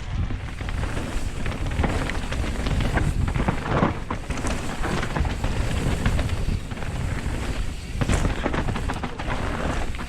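Wind buffeting an action camera's microphone while riding a mountain bike downhill, a heavy uneven rumble with scattered knocks and rattles from the bike on the trail.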